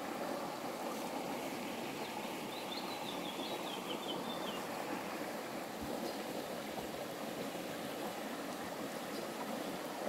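River water rushing steadily. A faint twittering bird call wavers over it for a few seconds near the start.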